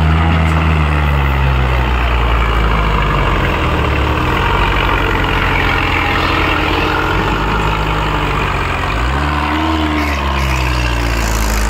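Tractor diesel engines running flat out under heavy load as a Kubota MU5501 and a Mahindra tractor pull against each other in a tug-of-war. The engine note is loud and steady, its pitch sagging and picking up again near the start and once more about nine seconds in.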